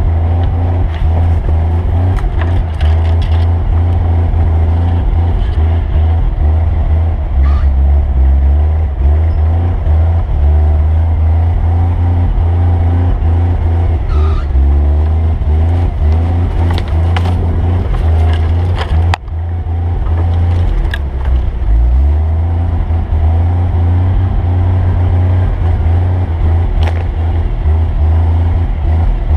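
A vehicle engine running steadily under way, with a heavy low rumble and a few scattered knocks. It eases off briefly about 19 seconds in, then picks up again.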